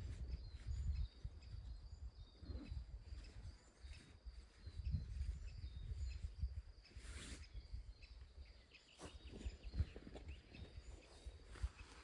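Outdoor ambience: a fluctuating low rumble with faint bird chirps, scattered small knocks, and a brief rustle about seven seconds in.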